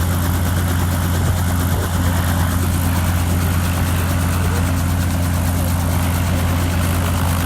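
Helicopter running steadily on the ground, a loud, even low drone that does not change.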